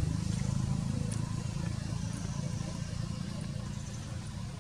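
A motor vehicle engine running at a steady pitch, slowly fading.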